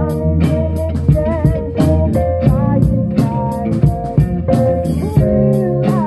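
A live rock band playing: electric guitar over a drum kit, with a steady beat of cymbal strokes.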